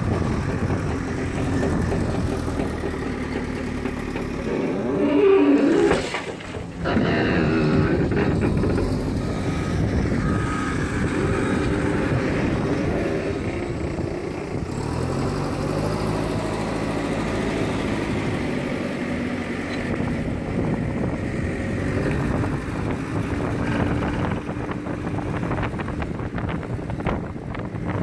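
A JCB 3CX backhoe loader's diesel engine runs under load as the machine carries and tips a front bucket of soil, its pitch rising and falling with the throttle. The sound dips briefly about six seconds in.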